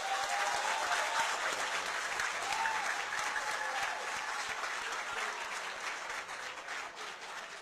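Audience applauding: dense, steady clapping with a couple of cheering cries in the first few seconds, easing off slightly near the end.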